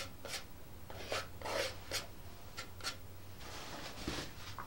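Fingers rubbing a paper sticker flat onto a wooden box: a series of short scratchy rubbing strokes, then a longer rub and a soft knock near the end.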